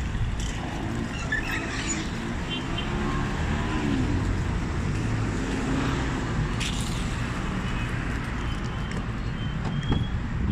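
Street traffic noise: a steady low rumble of car engines running, with faint voices in the background.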